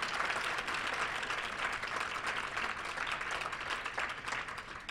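Audience applauding, a dense patter of many hands clapping that tapers off toward the end.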